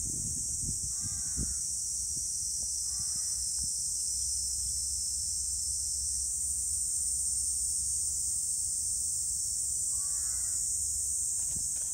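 Steady high-pitched drone of an insect chorus, with a crow cawing faintly three times: twice in the first few seconds and once near the end.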